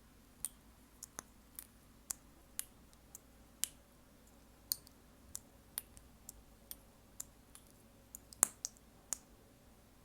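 Close-miked ASMR clicking: short, sharp clicks at an uneven pace, about two a second, with the loudest one near the end.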